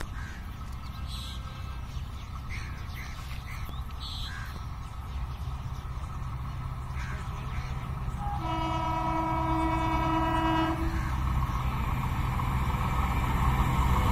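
Diesel-electric multiple unit (DEMU) train approaching, its low engine rumble growing steadily louder. A little past the middle it sounds one long blast of its multi-tone horn, lasting about two seconds.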